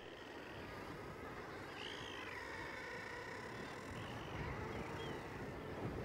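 Faint calls of seabirds at a cliff colony: a few short, arching high calls scattered through, over a low steady rumble.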